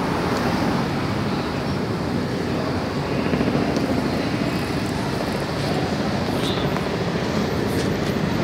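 Steady outdoor street noise with a low hum underneath.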